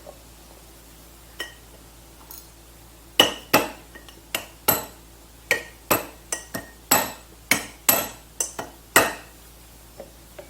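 Metal-on-metal hammer blows on the jet ski pump, about fourteen uneven strikes starting about three seconds in, each with a short metallic ring, after a light tap or two. This is work against a seized bearing in the pump.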